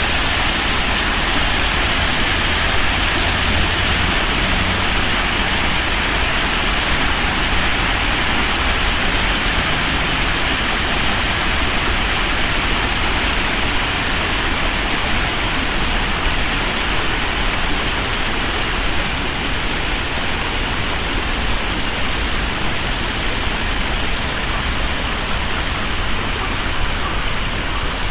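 Man-made waterfall: water pouring and splashing down in a loud, steady rush with a deep rumble underneath.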